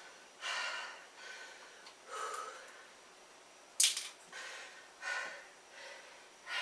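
A man breathing hard in and out after a set of push-ups, recovering from the effort, with one sharper, louder breath a little past the middle.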